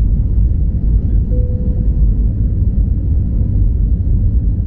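Airbus A321neo cabin noise during climb-out: a loud, steady low rumble of the jet engines and rushing air.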